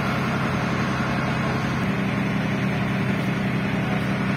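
Engine of a jangar (flat-decked vehicle ferry) running steadily while the ferry is underway: an unbroken low hum.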